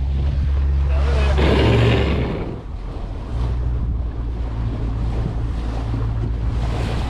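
Boat engine running with a steady low hum, under wind buffeting the microphone and water rushing past the hull. A louder rush comes about a second and a half in, and the engine hum drops away briefly near three seconds before returning.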